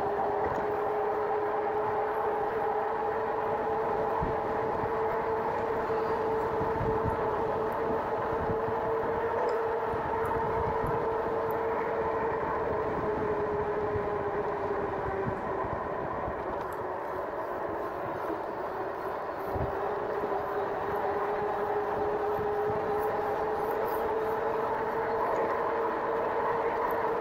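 Electric bike's geared rear hub motor whining steadily under power, several steady tones that waver slightly with speed, over a rushing noise from the ride. The sound eases briefly a little past the middle, then returns.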